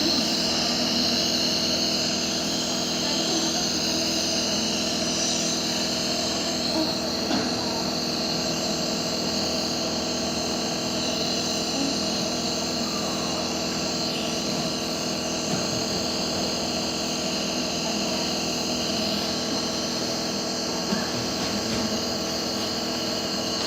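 Compressor nebulizer running steadily during a baby's steam treatment for chest congestion: a constant motor hum with a steady hiss.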